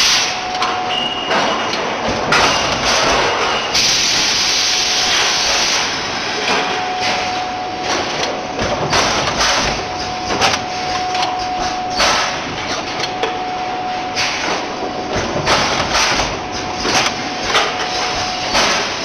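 Pneumatic container leak-testing machine running, with glass bottles knocking and clinking along the conveyor and the test heads clacking in quick, irregular knocks. About four seconds in comes a burst of compressed-air hiss lasting about two seconds. A thin steady tone sounds at times.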